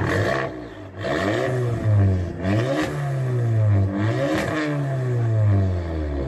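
Car engine revving, its pitch climbing and falling back several times as the throttle is blipped and released.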